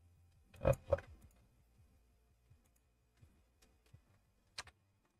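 Computer mouse clicking: two clicks close together about a second in, a few faint ticks, then a sharper click near the end.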